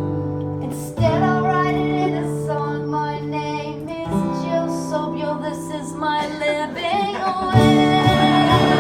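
Acoustic guitar chords strummed under a woman singing a song, a new chord struck about a second in and again near the end.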